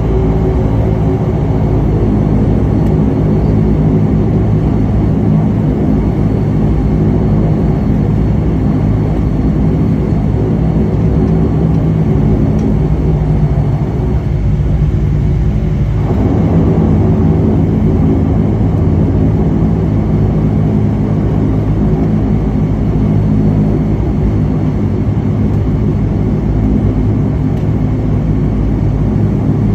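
Dash 8 turboprop engine and propeller at low taxi power, heard from the cabin seat beside the propeller: a loud, steady drone with a deep propeller hum. The mid range dips briefly about halfway through, then comes back.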